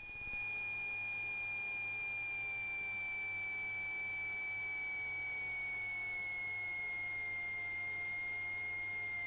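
Cessna 182's stall warning horn sounding continuously in the landing flare as the airspeed bleeds off: the wing is nearing the stall just before touchdown. A steady high-pitched tone that comes on at the start and drifts slowly lower in pitch.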